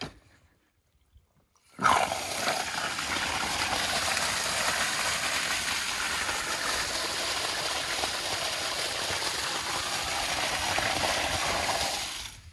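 Water gushing in a strong jet from a PVC ball valve opened wide to flush dirt and PVC shavings out of a new water line, splashing onto bare dirt. It starts suddenly about two seconds in, runs steadily, and cuts off abruptly near the end.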